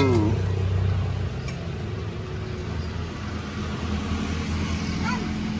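Street traffic: a steady low engine hum, with faint high voices near the end.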